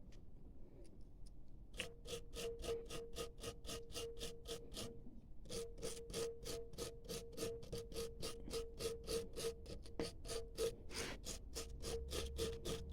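Wire brush scrubbing a dirty spark plug in fast back-and-forth strokes, about four a second, with a short pause midway: cleaning a fouled plug.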